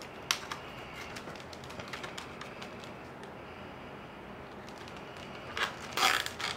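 Hands handling a reed basket rim with small clicks and rustles, then near the end two short rasps of a plastic cable tie being pulled through its ratchet catch to clamp the rims.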